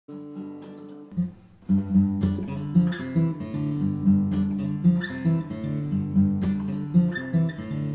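Acoustic guitar playing a song's introduction: one chord rings out, then after a short pause steady rhythmic strumming starts just under two seconds in.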